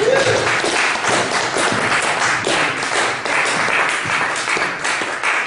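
Audience applauding: a dense, steady spread of hand claps.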